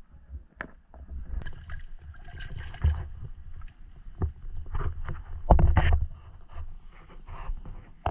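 Water sloshing and splashing around a camera held half under water in a shallow tide pool, muffled, with irregular knocks and bumps; the loudest splash comes about five and a half seconds in.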